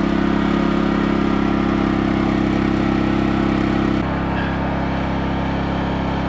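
MaXpeedingRods MXR 4500i four-stroke petrol inverter generator running steadily; about four seconds in its note changes abruptly and it gets slightly quieter.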